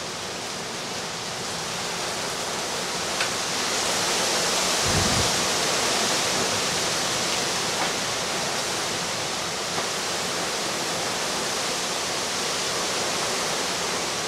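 Heavy, wind-driven rain pouring down in a severe wind storm: a steady rushing hiss that swells in a gust around the middle, with a brief low buffet about five seconds in.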